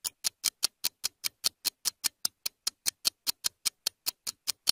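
Quiz countdown timer ticking steadily, about five sharp ticks a second, marking the time allowed to answer.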